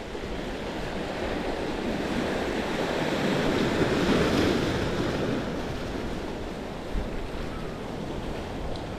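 Ocean surf washing in, swelling to its loudest about four seconds in and then easing off, with wind buffeting the microphone.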